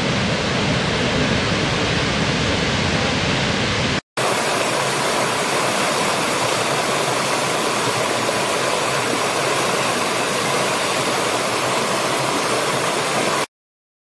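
A large waterfall rushing steadily. After a brief dropout about four seconds in, a small rocky stream cascading over stones, with a brighter, thinner rush and less rumble. The sound cuts off suddenly near the end.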